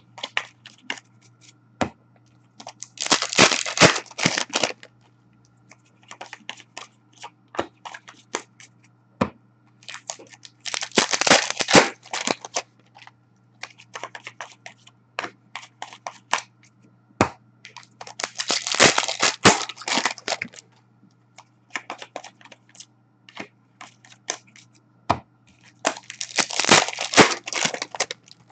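Hockey card pack wrappers being torn open one after another, four times about every seven or eight seconds, each tear lasting a second or two. Between the tears come light clicks and flicks of cards being handled.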